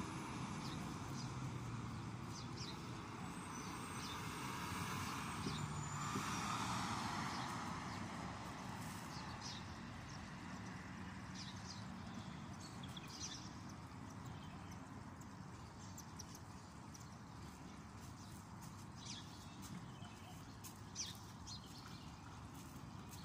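A passing car's tyre and engine noise swells and fades over the first several seconds. Then comes faint steady street ambience with scattered short, high clicks.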